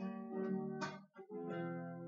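Acoustic guitar strummed in chords, each chord left ringing, with a brief break a little past halfway before the next chord comes in.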